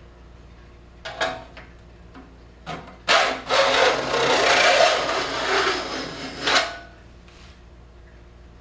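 A saw jointer's flat file drawn along the tops of a Disston D8 rip saw's teeth, jointing them to one level: two short scrapes, then one long filing pass of about three and a half seconds.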